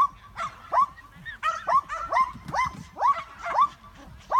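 A dog barking over and over, two or three sharp barks a second, each falling in pitch: the excited barking of a dog at an agility run.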